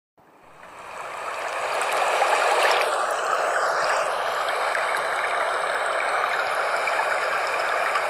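Flowing water, a steady rushing that fades in over the first two seconds.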